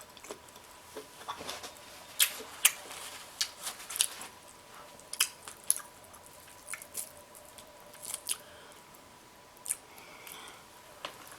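A person eating crab close to the microphone: irregular wet mouth smacks and clicks while chewing, about a dozen scattered sharp ones.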